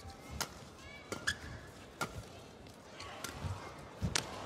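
Badminton rally: several sharp racket-on-shuttlecock hits about a second apart, with shoes squeaking on the court mat. Crowd noise swells near the end.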